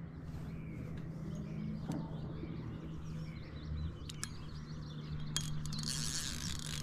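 Birds singing faintly outdoors over a steady low hum, with a few sharp clicks.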